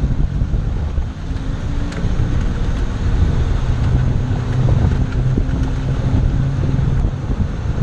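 Car engine running with a steady low hum under a rumble of wind buffeting the microphone.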